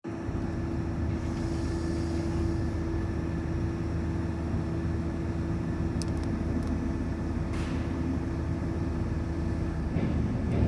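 Mobile crane's diesel engine running steadily with a low, even drone, a few faint clicks about six seconds in and a brief hiss a little later.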